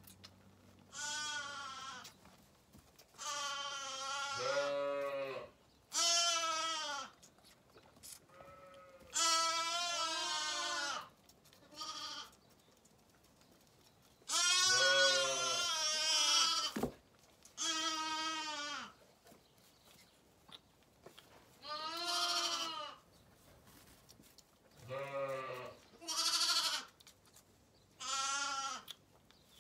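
Young Zwartbles lambs bleating at bottle-feeding time: about a dozen separate quavering calls, each a second or two long, with short pauses between them.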